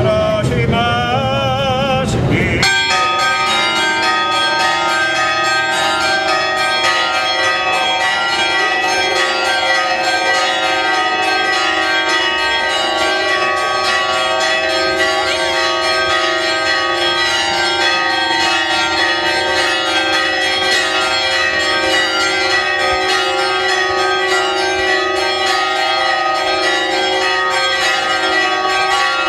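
Church bells ringing continuously in a fast, even run of strikes. Chanting is heard briefly and cuts off about two seconds in, when the bells begin.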